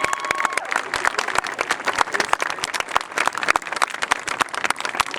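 Crowd applauding: many hands clapping densely and irregularly.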